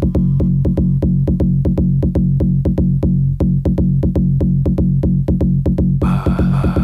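Electronic dance music with a fast, steady drum-machine beat over a sustained bass; a brighter, fuller layer comes in near the end.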